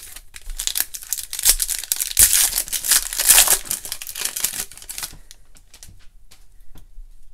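Foil wrapper of a Panini Prizm basketball card pack crinkling and tearing as it is opened by hand. The crackling dies away about five seconds in, leaving a few light clicks as the cards are handled.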